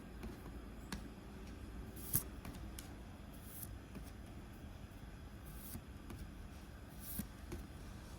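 Pokémon trading cards being handled and slid off a stack one at a time: short soft swishes every second or two, with a few light clicks, the sharpest about two seconds in.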